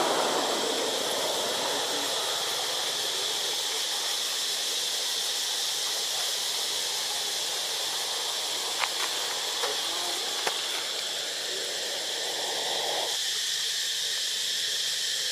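Steady high-pitched drone of insects in the forest canopy, with a few short clicks in the middle.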